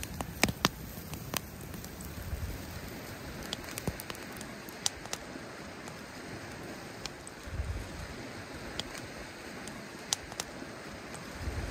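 Wood campfire crackling, sharp pops scattered through a steady hiss.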